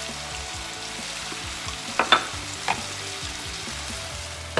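Vegetables (butter pumpkin and string beans) sizzling steadily in a hot pan on a gas stove, with a few sharp clinks about two seconds in.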